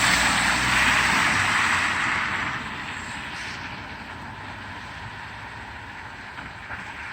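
A car driving away, its engine and tyre noise fading steadily over several seconds as it recedes.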